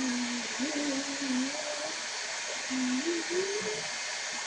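A girl humming a tune softly in short held notes that step and slide up and down, over a steady hiss.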